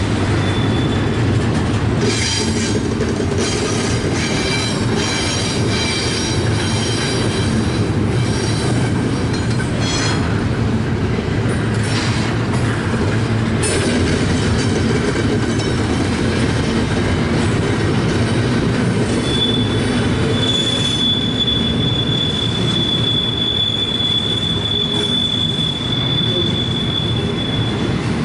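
Double-stack intermodal freight cars roll steadily past with a continuous rumble of wheels on rail and occasional clanks. From about two-thirds of the way in, one high steady wheel squeal sounds as the train comes off the wye curve onto the main track.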